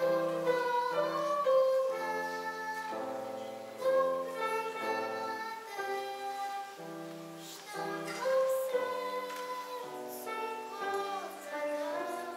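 A child singing a song solo, with held and sliding notes over instrumental accompaniment.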